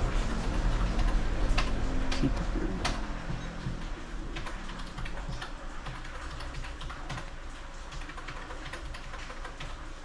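Irregular clicks of fingers tapping keys on a self-service parcel kiosk's touchscreen keyboard. A low rumble underneath eases off after the first few seconds.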